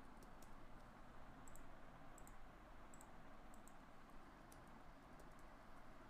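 Faint, scattered clicks of a computer mouse and keyboard keys over a steady low hiss.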